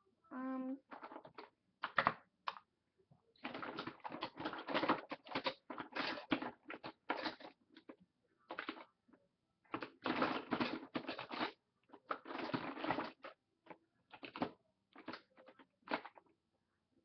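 Hands rummaging through a clear plastic tub of makeup, small items clattering and rattling against each other and the plastic in irregular bursts, while searching for a makeup brush. A short hum-like tone sounds about half a second in.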